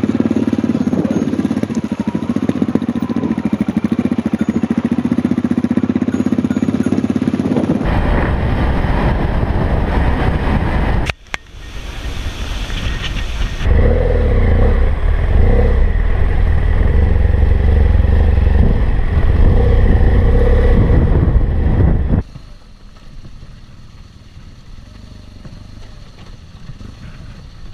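Motorcycles running on the move, heard in several short clips cut together. The first stretch carries a steady engine note. Louder, noisier clips follow, and the last few seconds are much quieter.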